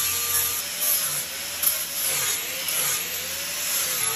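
Corded angle grinder running against cedar, grinding and sanding the carved wood. A steady whine whose pitch dips and rises slightly as the disc bears into the wood.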